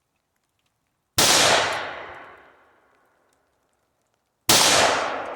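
Two rifle shots about three seconds apart, each a sharp crack that rings out and fades over about two seconds.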